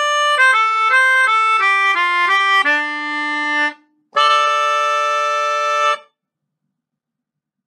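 Melodica playing a short jingle: a quick run of single notes stepping mostly downward, a held low note, then after a brief break a sustained chord of about two seconds.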